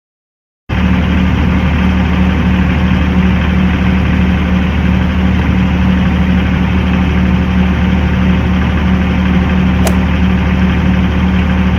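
Engine idling steadily, cutting in abruptly at full level just under a second in after silence.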